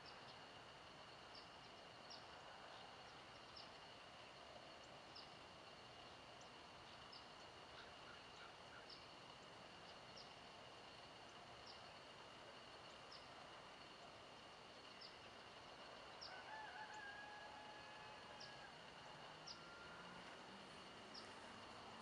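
Faint dawn nature sounds. A steady, high insect drone runs under a bird's short, high chip repeated about once a second. About three-quarters of the way through, a longer, lower call comes from farther off.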